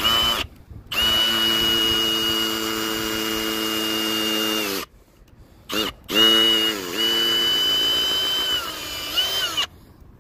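Milwaukee M18 Fuel Gen 3 cordless hammer drill running in its low-speed setting, with a steady motor whine. It starts with a short blip of the trigger and runs twice for about four seconds each, its pitch sagging briefly under load during the second run.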